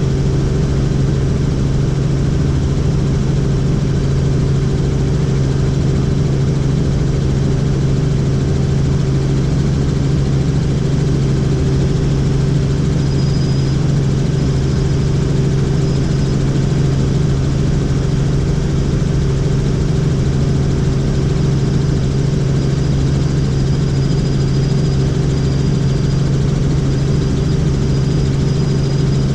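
Helicopter in steady flight: an unbroken drone of rotor and engine with a strong low hum, and a faint high whine that comes and goes from about halfway through.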